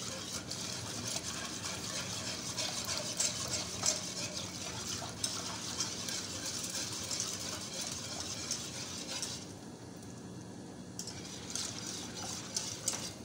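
Wire whisk beating a thin milk-based white sauce in a saucepan: a rapid, continuous scratching and clicking of the wires against the pan, whisked fast to keep lumps from forming. The whisking drops away about nine seconds in and picks up again near the end.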